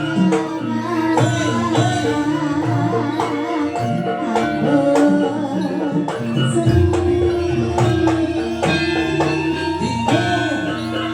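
Live East Javanese jaranan gamelan music: hand-played drums and gongs under sustained metallic tones, with a wavering melody line above.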